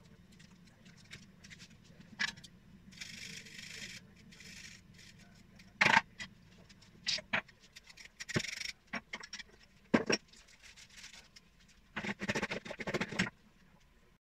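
Kitchen handling sounds at a plastic mixing bowl: scattered sharp knocks and clicks, a brief rustle about three seconds in, and a run of quick scraping strokes near the end, as of whole nutmeg grated on a small hand grater over seasoned potato pieces.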